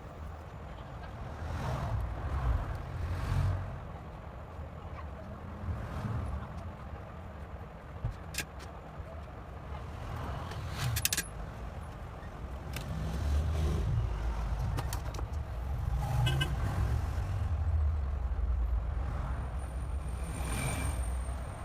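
Low, uneven rumble with a few small clicks scattered through it.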